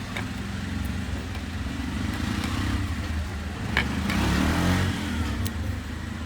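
A motor engine running steadily, swelling a little partway through as if revving, with a couple of sharp clicks about four seconds in.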